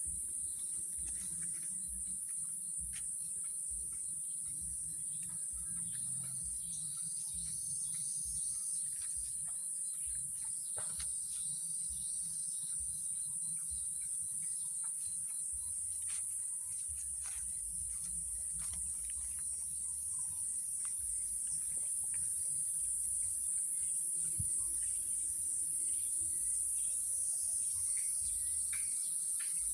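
Steady high-pitched insect chorus, like crickets, carrying on without a break, with scattered faint clicks and a low rumble underneath.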